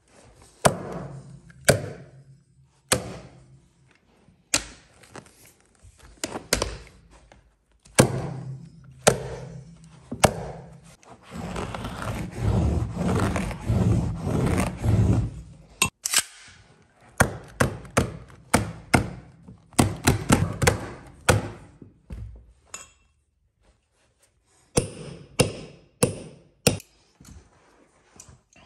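Carpet-installing tools striking on wooden stairs: a long run of sharp thunks and clicks, irregularly spaced and at times coming two or three a second, with a few seconds of dense scraping and rumbling near the middle.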